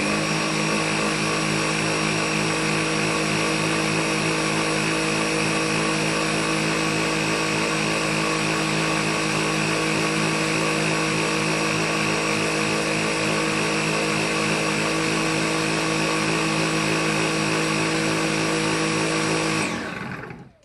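Dyson V7 cordless stick vacuum running at maximum power with its Motorhead brush roll spinning, the nozzle sealed onto an airflow test box: a steady high whine over a dense hum. It switches off about a second before the end and winds down with a falling tone.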